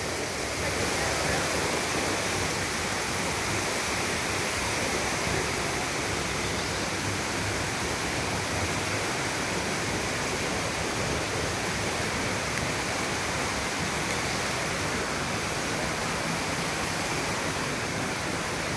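Fast-flowing creek water rushing steadily, an even hiss with no breaks.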